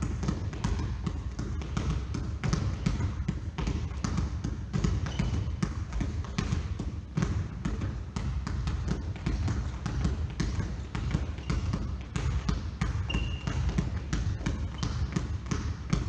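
Basketball dribbling fast and continuously on a hard floor: rapid, uneven bounces several times a second during a ball-handling drill, with a few short high squeaks.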